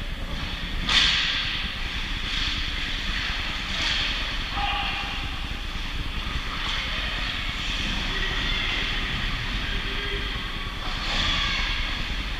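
Noise of a game in progress: a steady hissing wash with faint voices, and a single sharp knock about a second in.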